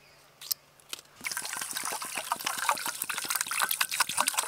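Litchi soft drink poured from a plastic bottle into a stainless steel bowl, a steady splashing pour starting about a second in, after a single small click.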